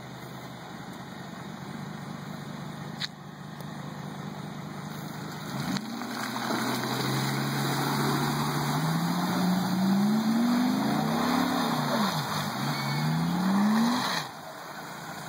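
Volkswagen Touareg's V10 twin-turbo diesel engine running low and steady, then revving up in a series of rising surges from about six seconds in as the SUV struggles up a muddy incline, dropping back suddenly near the end. A single sharp click about three seconds in.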